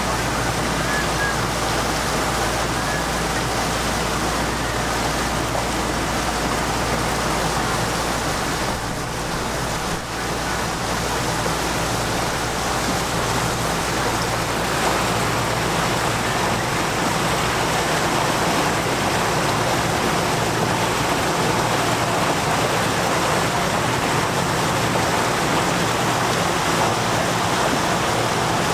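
Steady rush of water along the hull of a motor boat under way, with the low, even drone of its engine underneath.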